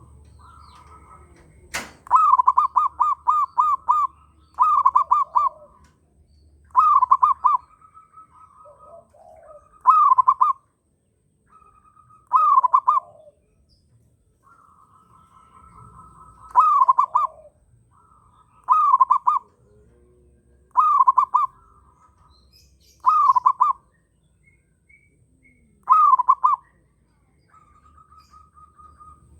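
Zebra dove (perkutut) cooing in strong breeding condition: a phrase of quick, falling coo notes repeated every two to four seconds, with a sharp click near two seconds in.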